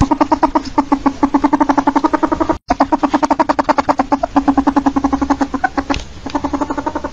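Ferret dooking: a fast, steady chatter of pitched clucks, about ten a second. It cuts out for an instant about two and a half seconds in and grows softer near the end.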